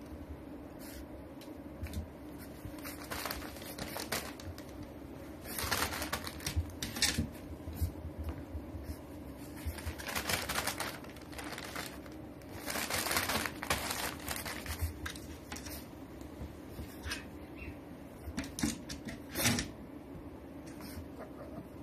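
French bulldog puppy scrambling about a wooden pen, its claws clicking and scratching on the boards and carpet, with several louder bursts of newspaper rustling as it steps onto the paper, over a steady low hum.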